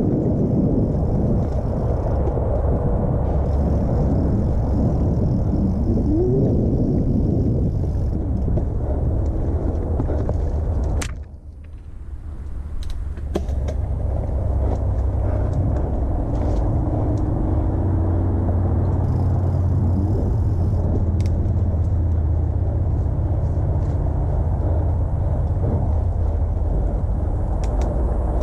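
2017 Specialized Stumpjumper mountain bike rolling over dirt singletrack, heard through a GoPro on the bike or rider: a steady low rumble of tyres and frame vibration with scattered clicks and rattles. The rumble drops away briefly about a third of the way in.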